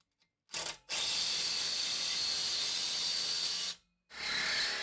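Reciprocating saw cutting through a steel exhaust pipe: a steady rasping hiss that starts abruptly about a second in, stops sharply for a moment, then resumes near the end.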